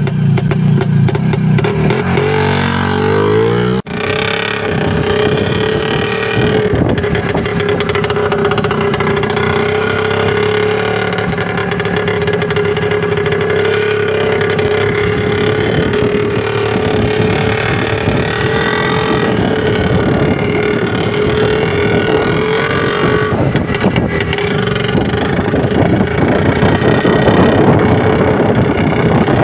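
IZh two-stroke motorcycle engine running, its pitch rising in the first few seconds, dipping briefly about four seconds in, then running on steadily.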